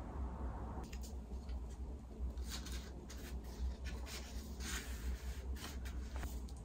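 Paper tape pulled and torn from a small roll, then a paper letter pressed and rubbed flat against a wall: a run of short rustles and scrapes, busiest from about two seconds in, over a steady low hum.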